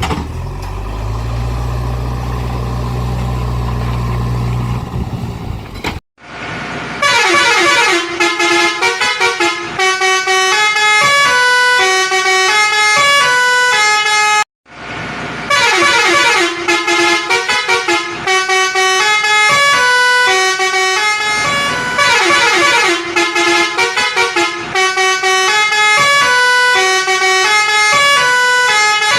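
A low, steady engine-like drone that steps up in pitch about a second in, then stops after about six seconds. It is followed by a bright electronic tune of quick stepped notes, the kind a toy vehicle's musical horn plays, which breaks off briefly about halfway and starts again.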